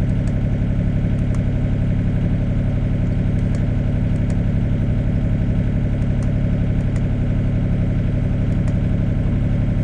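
Sany SY35U mini excavator's diesel engine idling steadily, heard from inside the cab.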